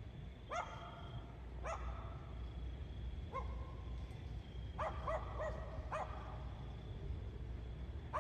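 A dog barking repeatedly: about eight short barks, several coming in a quick run about five seconds in.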